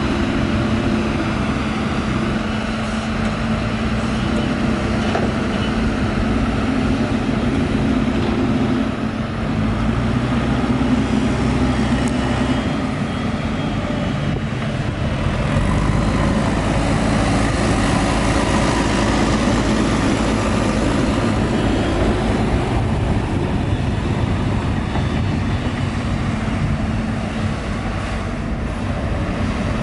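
Liugong 922D excavator's diesel engine running steadily under working load, its note shifting a few times as the machine works.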